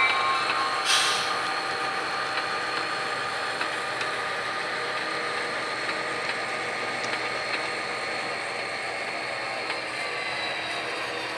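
Sound decoders in three HO-scale diesel locomotives playing diesel engine running sounds together as the consist moves slowly, a steady mechanical drone with faint tones. A short hiss like an air release comes about a second in.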